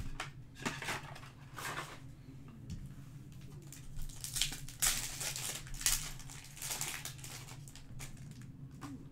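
Topps Chrome card-pack wrappers crinkling and tearing as packs are handled and ripped open by hand, in a run of short rustles that is busiest in the middle, over a low steady hum.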